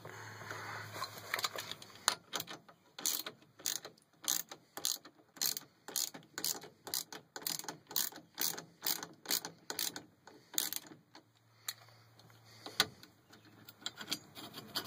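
Socket ratchet clicking steadily, a few clicks a second, as it backs off the nut on a homemade lock-plate tool on a GM steering column shaft. The clicking stops about eleven seconds in, with only a couple of clicks after.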